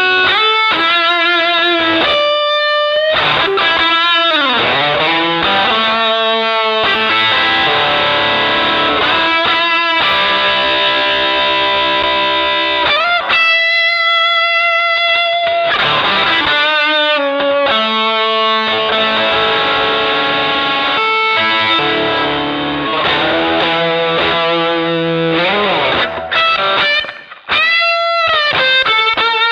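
Electric guitar played through an MXR Dynacomp compressor pedal: sustained single notes and bends with vibrato, held at an even level by the compression, with a couple of short pauses between phrases.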